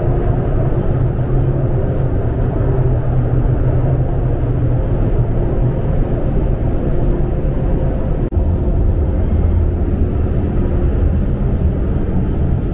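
Steady rumble of a metro train running, heard inside the passenger car: wheels on rails and running gear, with a faint steady hum from the traction motors.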